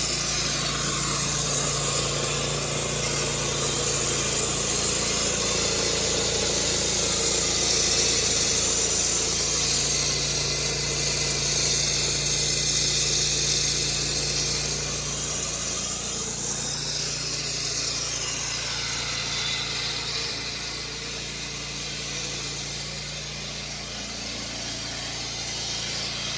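Gas-powered concrete saw running steadily, its engine tone dropping out briefly and returning a few times, a little quieter in the second half.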